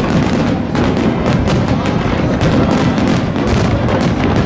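Fireworks going off in rapid succession, a dense run of bangs and crackles several a second, with music playing underneath.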